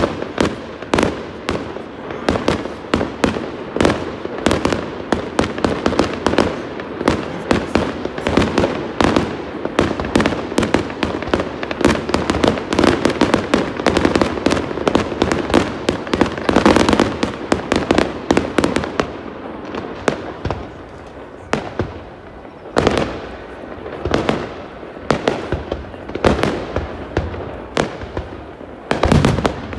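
Aerial fireworks exploding overhead in a dense, rapid barrage of bangs and crackles. About two-thirds of the way through it thins out into separate bangs with short gaps between them.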